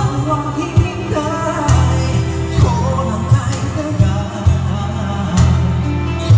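Pop song with a sung vocal melody over a steady bass line and drum beat.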